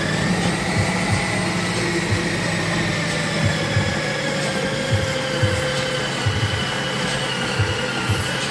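Ninja Auto-iQ food processor motor running steadily as it blends cooked yam into pounded yam, with a high whine that drifts slowly lower in pitch. Irregular low thumps come about twice a second.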